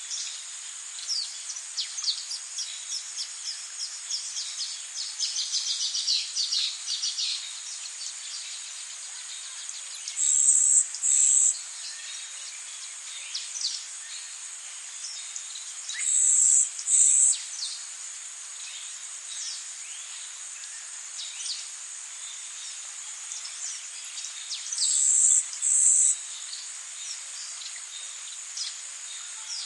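Tropical rainforest ambience: a steady high-pitched insect drone, with many quick descending bird chirps over the first several seconds. Three times, some six to nine seconds apart, a loud insect call comes in as two short buzzes in a row.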